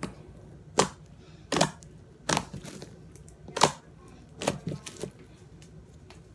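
Crunchy butter slime squeezed and pressed by hand, giving off a series of sharp, irregular pops and clicks as trapped air bursts out of it. The pops stop about five seconds in.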